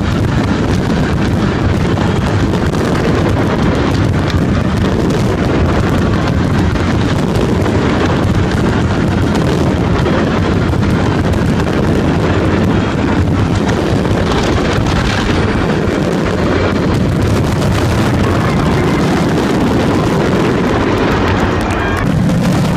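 A dense fireworks barrage: many shells bursting in quick, unbroken succession, a steady rumble of booms and crackles with no pauses.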